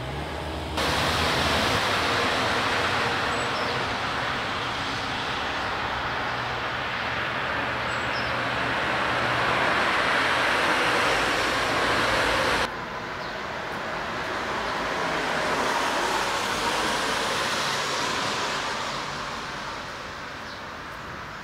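Street traffic noise, with passing cars swelling up and fading away. The level jumps up abruptly about a second in and drops abruptly a little past halfway.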